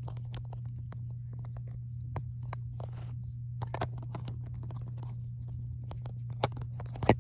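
Plastic Lego pieces clicking and rattling as they are handled and pressed together, with a sharper, louder click near the end. A steady low hum runs underneath.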